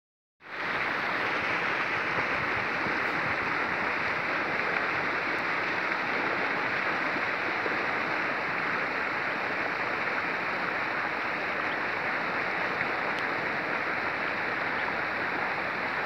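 A steady rushing noise that starts about half a second in and holds level throughout.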